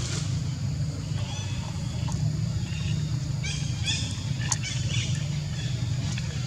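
Short, high chirping animal calls, a few in quick succession about three and a half to five seconds in, over a steady low rumble.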